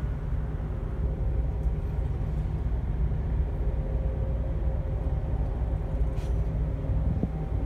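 Steady low rumble of background noise, with no distinct knocks or other events.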